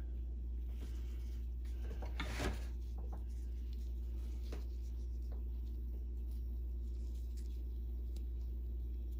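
Cotton swab rubbing grime off a sewing-machine motor's carbon brush: faint rubbing and small handling noises, with a brief louder knock about two and a half seconds in, over a steady low hum.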